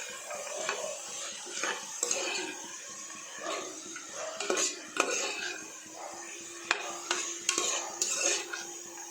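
A spoon stirring mushrooms and green peas into onion-tomato masala in a pressure cooker, scraping the pot and knocking against it now and then at irregular intervals.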